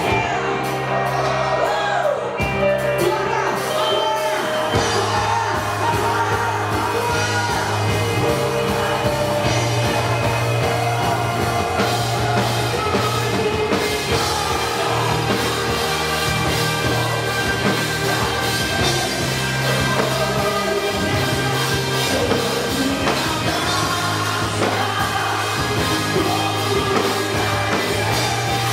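A Christian worship song performed by a band, with singing over sustained bass notes.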